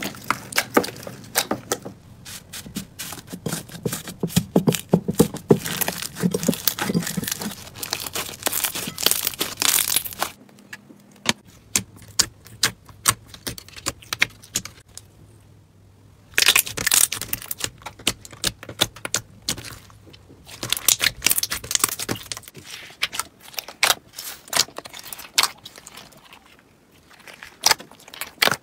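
Slime being squeezed, poked and stretched by hand, making rapid crackling, clicking and popping, with abrupt changes about ten and sixteen seconds in as one clip gives way to another.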